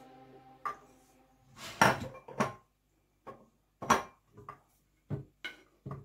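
Wooden cutting board knocking against a blender jar as chopped pieces are tipped and tapped into it: a string of uneven sharp knocks and clinks, the loudest about two seconds and four seconds in.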